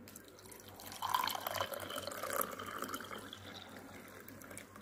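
Water pouring in a stream into a glass mug, splashing over a lemon slice. It picks up about a second in, is loudest for the next second and a half, then eases off as the mug fills.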